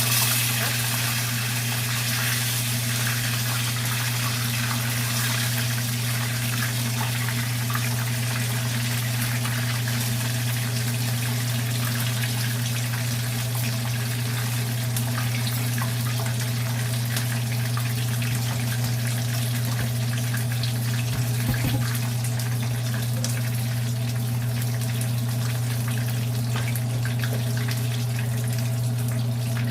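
Hot cooking oil sizzling and crackling steadily as breaded fried chicken pieces fry, over a steady low hum.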